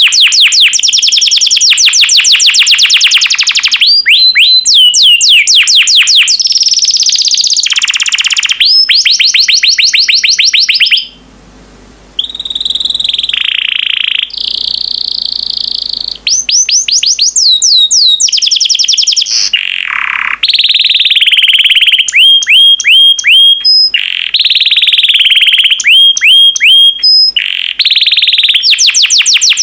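Yellow canary singing loudly in long fast trills of rapidly repeated, sharply falling high notes, broken by a few longer held whistled notes and a brief pause about eleven seconds in.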